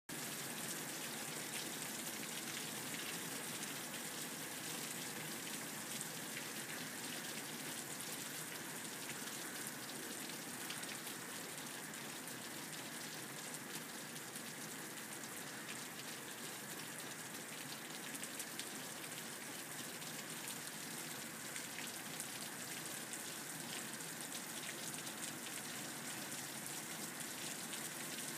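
Heavy pouring rain falling steadily: a constant hiss with a dense patter of drops.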